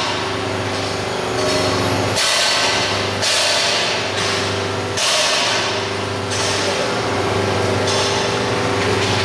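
Arc welding: a steady electrical hum with bursts of arc hiss and crackle that start sharply every second or two, mixed with metallic knocks.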